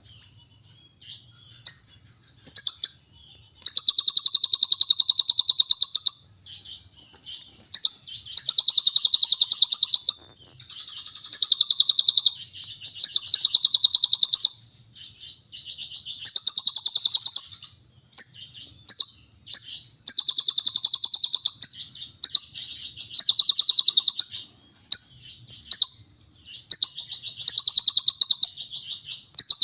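Sunbird (kolibri ninja) singing a mimicked lovebird-style long chattering trill ('ngekek panjang'). It comes in high, dense phrases of two to four seconds each, repeated again and again with short pauses and a few shorter chips between them.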